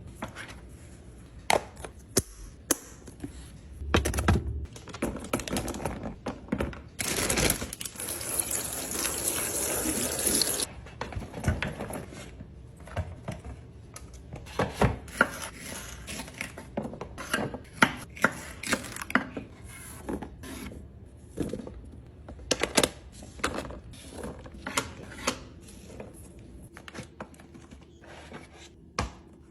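Food, chips and fruit being handled and arranged in containers, giving a run of sharp clicks, taps and rustles. A steady hiss lasts about three seconds, starting about seven seconds in.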